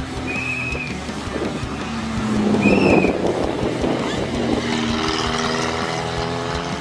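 Rally car engine at high revs as the car races past, loudest about three seconds in. Two short high whistle-like tones come early and near the peak.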